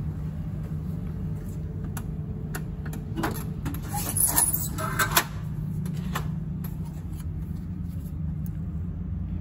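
Steady low hum from a refrigerated vending machine running, with scattered clicks and knocks and a short clatter of handling about four to five seconds in.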